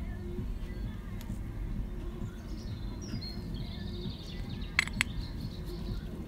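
Birds chirping in the background, and two sharp clicks close together about five seconds in as the greased gear-shift linkage parts are handled.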